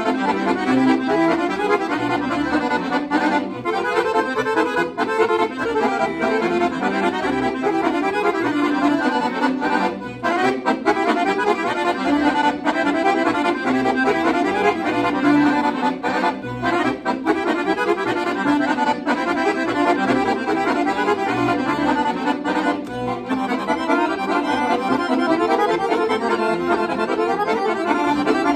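Two chromatic button accordions, a Siwa & Figli and a Guerrini, playing a kolo dance tune in duet. The melody moves in quick runs of notes over a steady lower accompaniment, with no breaks.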